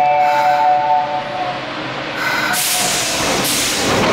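Osaka Metro Midosuji Line subway train moving at the station platform. A loud hiss of train and rail noise sets in about two and a half seconds in, after some steady tones fade out in the first second and a half.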